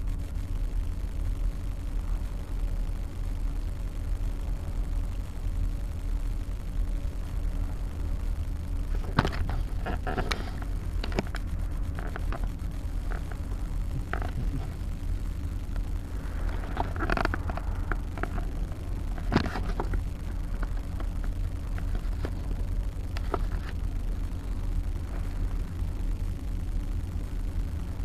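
Steady low rumble with scattered knocks and clicks of the camera being picked up and handled, starting about nine seconds in.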